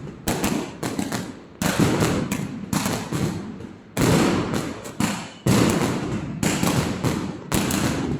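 Fireworks exploding one after another: a string of loud bangs, about one a second, each followed by a long echoing tail.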